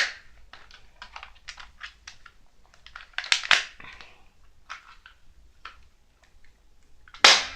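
Plastic clicks and rattles of toy BB guns being handled, then near the end one sharp, loud crack of a BB gun (airsoft) being fired.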